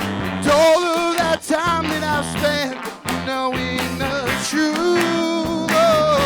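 Live rock band playing a song: a wavering lead melody held over guitar and a sustained bass line, with steady percussive hits.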